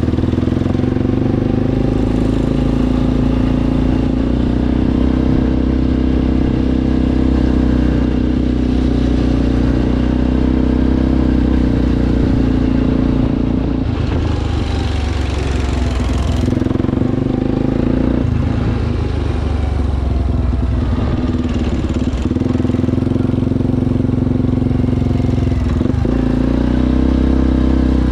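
ATV engine running steadily, its note shifting a few times as the throttle changes, with a stretch of louder hiss around the middle.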